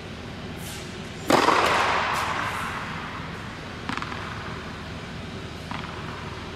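Tennis ball impacts echoing in a large indoor tennis hall. A loud thump about a second in rings on with a long reverberant tail, and two lighter knocks follow as the ball is bounced on the hard court before a serve.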